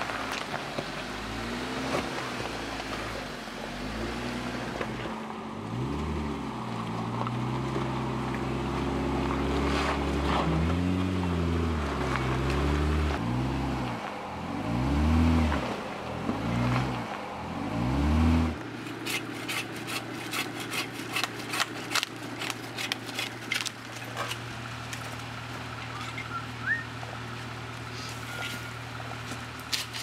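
Jeep Wrangler engine working off-road, its note rising and falling over and over as the driver rides the throttle over ruts and mud. Near the end of the Jeep sound it suddenly gives way to a quieter steady low hum, with a quick run of sharp cracks and snaps.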